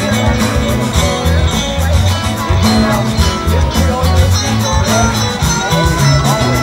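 Live band playing: drum kit, electric bass, strummed acoustic guitar and electric guitar, with a steady beat and gliding guitar lines over it.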